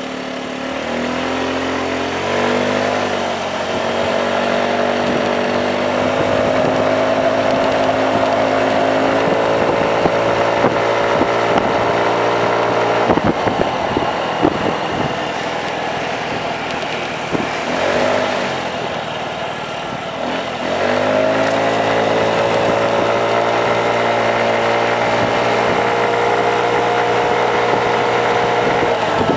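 Small motor scooter engine pulling away and running at speed, its pitch rising over the first few seconds and holding steady. About two-thirds of the way through it eases off, then speeds up again.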